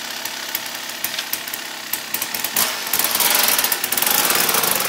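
2001 Kawasaki KX250 single-cylinder two-stroke engine with a Pro Circuit expansion chamber and silencer, running with a rapid crackle, then revved hard from about two and a half seconds in as the bike pulls away.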